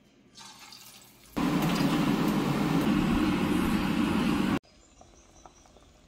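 Grated food sizzling in hot oil in a stainless-steel pan: a loud, steady sizzle that starts suddenly about a second and a half in and cuts off abruptly about three seconds later.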